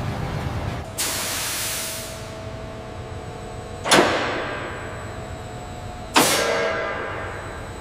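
Three sudden hissing bursts, about a second in, near four seconds and past six seconds, each fading away over a second or two, over a steady low machine hum with a faint high whine.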